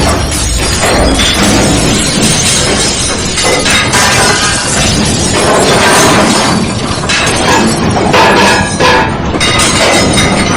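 Earthquake sound effect: a loud, continuous din of glass shattering and things breaking, with many overlapping crashes.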